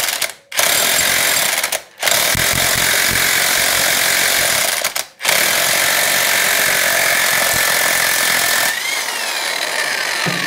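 Impact wrench hammering on a nut in several bursts, the last two lasting several seconds each, with short pauses between them.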